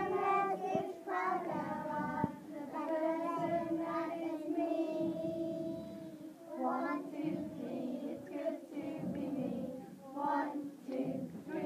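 A group of young nursery children singing together, holding long notes.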